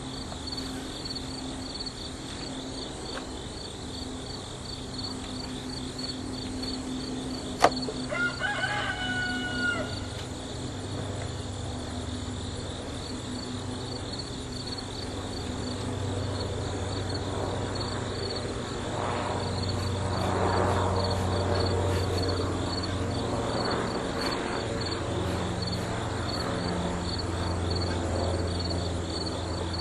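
Insects chirp steadily in pulses over a low, steady hum. About eight seconds in, after a sharp click, a rooster crows once, a call of about two seconds. Later a patch of louder rustling noise swells and fades.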